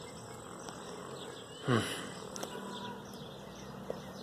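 Faint, steady outdoor background with a low hum. Nearly two seconds in comes one short vocal sound that falls in pitch, and a small click near the end.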